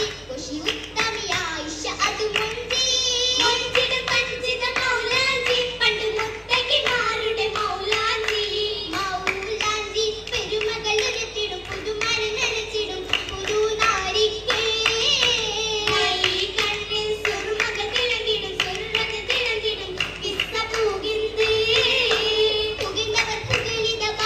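Oppana performance: young girls' voices singing a Mappila song together, with the dancers' rhythmic hand-clapping throughout.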